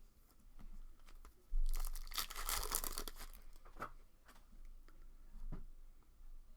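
A trading card pack's wrapper being torn open: a crinkling rip lasting about a second and a half, followed by a few light taps.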